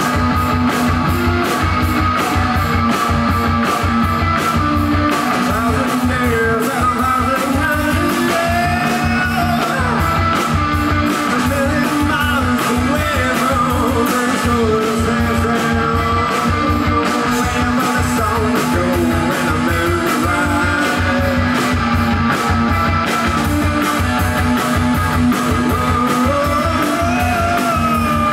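Live rock band playing: electric guitar and a drum kit keeping a steady beat, with a man singing at times.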